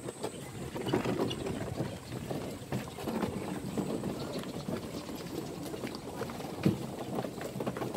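Busy background of a crowd of visitors walking past, with scattered footsteps and faint voices, and one sharp knock near the end.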